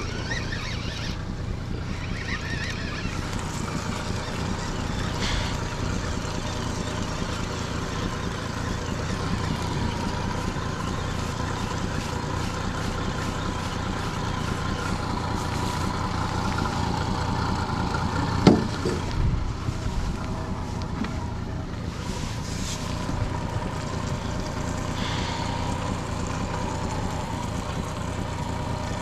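Steady wind and water noise around a small fishing boat on a river, with a faint wavering hum and one sharp knock about two-thirds of the way through.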